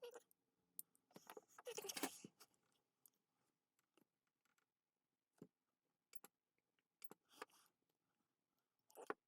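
Faint scattered clicks and a brief metallic rustle, small metal parts handled on a workbench: 18650 cells and nickel strip being worked during spot welding.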